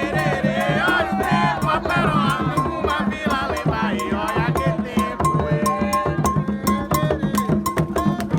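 Candomblé ritual music: hand drums beaten in a fast, steady rhythm, with a metal bell ringing a repeating pattern and several voices singing.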